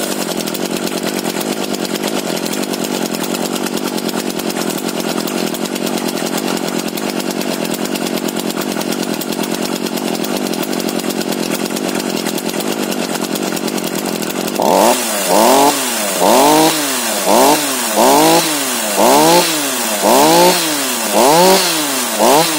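Makita DCS4301 two-stroke chainsaw idling steadily while warming up after a cold start. About two-thirds of the way through, the throttle is blipped repeatedly, roughly once a second, and each blip revs the engine up and lets it drop straight back to idle.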